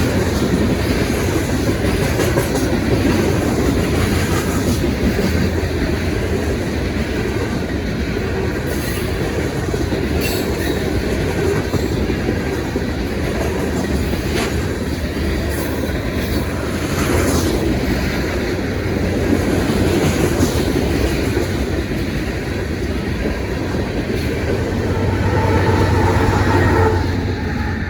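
Freight train cars rolling past at close range: a steady rumble of steel wheels on rail with scattered sharp clicks, getting a little louder near the end.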